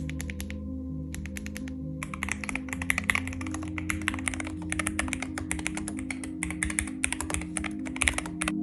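Typing on a Keydous AJ68-CP low-profile keyboard with magnetic hall effect switches. A few scattered keystrokes come first, then fast continuous typing from about two seconds in until just before the end.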